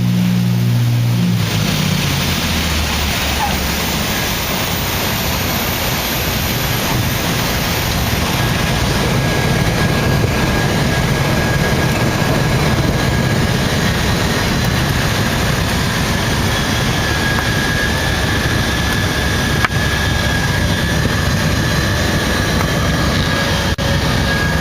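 Cessna 310's twin flat-six piston engines pulled back about a second and a half in: the steady engine drone gives way to a rough low rumble under a steady rush of noise. A faint thin tone comes in about a third of the way through, and there are two sharp clicks near the end.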